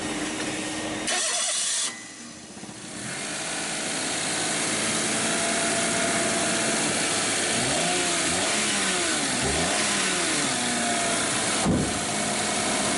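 Daihatsu Mira Van engine started and running, blipped a few times so its pitch rises and falls in the middle, with a sharp click near the end. The rattling noise is gone: a new alternator has replaced the one whose bearing noise was mistaken for a water pump.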